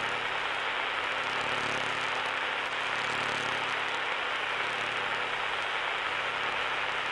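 Steady broadcast static after an emergency transmission has ended: an even hiss with a low hum beneath it, unchanging throughout.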